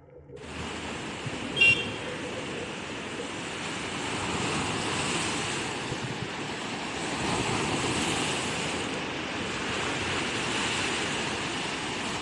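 Rushing, surf-like water noise of an underwater dive recording, swelling and easing every few seconds, with a short high squeak about one and a half seconds in.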